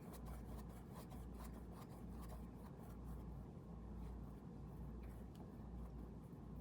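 Faint scratching and light tapping of a drawing tool working strokes across a surface while colour is filled in, over a low steady hum.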